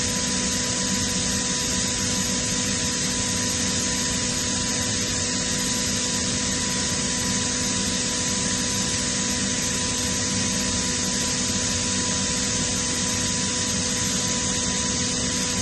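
Kaeser CSDX162 oil-injected rotary screw air compressor running steadily, a constant machine noise with a steady hum.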